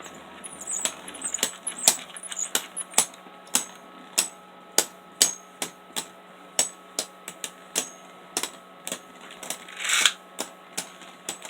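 Two Beyblade Burst tops, Spriggan Requiem and Z Achilles, spinning and clashing in a plastic stadium. Sharp plastic clicks come at an irregular pace of a few a second as the tops knock into each other and the stadium walls.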